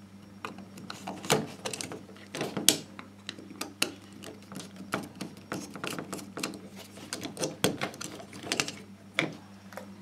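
Screwdriver loosening the terminal screws of a plastic light switch to free its wires, with irregular small clicks and scrapes of metal on plastic.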